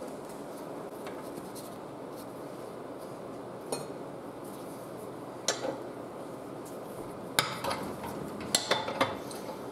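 Metal hand tools clinking on a workbench as a wrench is picked up: a few sharp clinks spread out, then a quicker cluster of them near the end.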